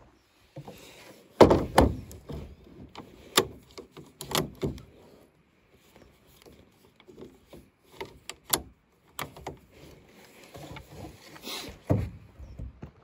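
A string of knocks, clunks and scrapes as a scoped rifle is handled and laid along the ribbed metal tray of a ute. The loudest knock comes about a second and a half in, with more spread through the rest.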